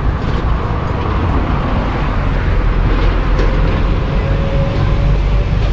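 A motor-vehicle engine running steadily and loudly with a deep rumble, an added sound effect.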